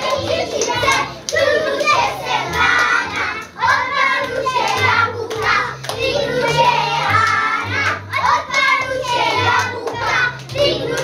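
Children's song: children singing along to recorded music with a bass line.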